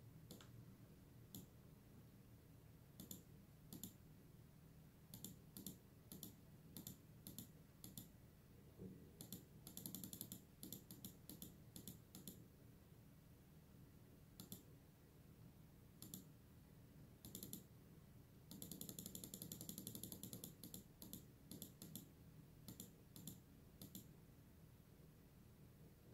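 Clicking at a computer while the transceiver is tuned from the PC software: single sharp clicks a second or two apart, and two runs of rapid clicking, one about ten seconds in and a longer one about eighteen seconds in. A faint steady low hum lies underneath.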